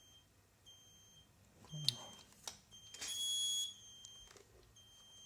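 Turnigy 9XR Pro RC transmitter beeping: short high-pitched beeps repeating every second or two, one of them longer and joined by a hiss. A couple of clicks of handling are heard between them.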